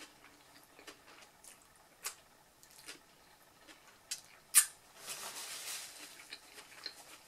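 Close-up eating sounds: faint chewing with scattered soft mouth clicks, a sharp wet smack from licking her fingers about four and a half seconds in, then about a second of paper wrapper rustling.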